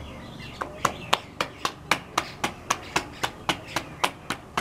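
Bare hands patting and slapping a round of dough between the palms to flatten it by hand, a quick even rhythm of about four slaps a second that starts about half a second in.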